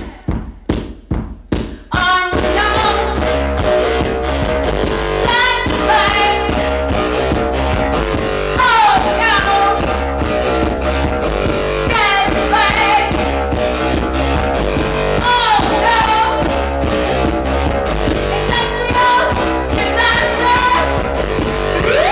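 Live electronic band music: about six separate percussive hits, then from about two seconds in a full loud groove of steady synth bass, a busy repeating keyboard pattern and a voice, with recurring falling pitch slides.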